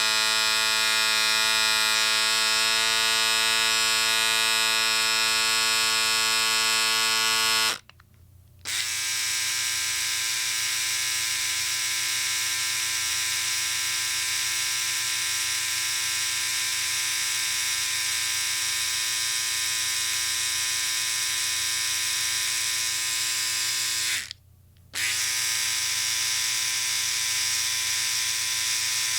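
Electric shaver running with a steady buzz, switched off twice for under a second and started again. After the first break it is slightly quieter.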